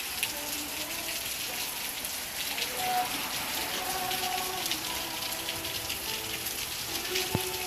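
Steady rain falling, a dense hiss full of small drop ticks, with faint soft held musical tones underneath.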